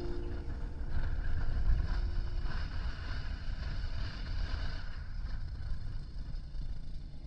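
Steady low rumble of wind buffeting an action camera's microphone, with the last notes of background music fading out in the first couple of seconds.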